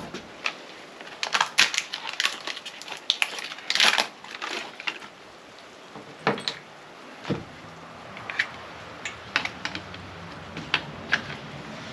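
Hands working with assembly hardware: a plastic hardware pack crinkling and a run of sharp clicks and knocks as a pin and the cart's plastic pull handle are picked up and fitted onto the steel tongue. A few more scattered clicks follow, and a low steady hum comes in about seven seconds in.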